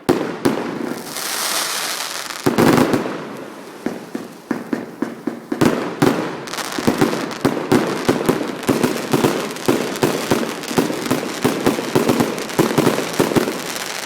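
Fireworks finale: a rapid run of exploding shells and crackling bangs, with a hissing burst about a second in and a heavier blast a little later, then the bangs coming faster and faster, several a second, from about halfway.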